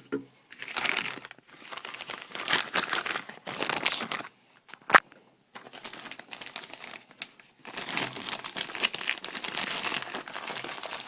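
Packaging being handled and crinkled in irregular rustling bouts, with a single sharp click about five seconds in.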